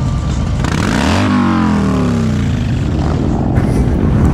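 Cruiser motorcycle riding close past, its engine note rising and then falling in pitch as it goes by, over a steady low rumble of other motorcycle engines.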